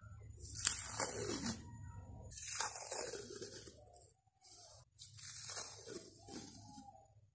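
Washi tape being peeled off its roll, a crackly unsticking sound in three pulls of about a second each.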